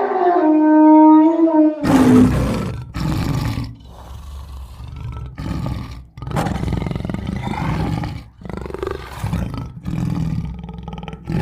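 Wild animal roar sound effects: a long pitched call in the first two seconds, then a run of rough roars one after another with short gaps.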